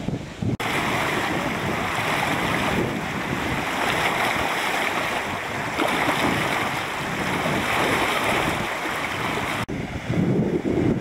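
Floodwater rushing over a concrete weir edge, a steady dense rush of white water. About ten seconds in it cuts to a lower, uneven rumble of water gushing out of a culvert outlet, with wind on the microphone.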